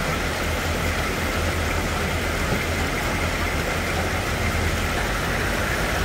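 Diesel engines of military vehicles, a Humvee and a cargo truck, running steadily at low speed while fording a flooded river, over the steady rush of the floodwater.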